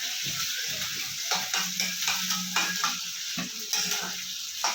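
Chopped onion and green chillies sizzling in hot mustard oil in a karahi, stirred with a spatula that scrapes and knocks against the pan every so often.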